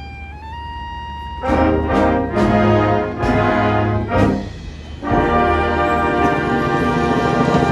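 High school marching band playing: a single held brass note slides upward, then the full brass band comes in about a second and a half in with loud accented chords and drum hits, breaks off briefly, and swells into a long sustained full-band chord.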